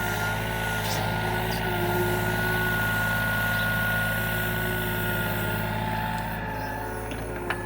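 John Deere excavator's diesel engine running steadily, with a steady high whine over the engine drone that stops about three-quarters of the way through. A single sharp click near the end.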